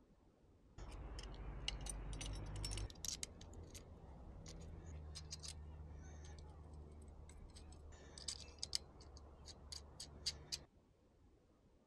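Irregular sharp metallic clicks and ticks of small parts and tools being handled during bicycle reassembly, over a low steady hum. The sound starts and cuts off suddenly.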